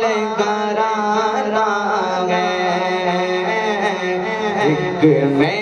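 A man's voice singing a naat into a microphone, drawing out long melismatic notes that bend up and down without clear words, over a steady low tone underneath.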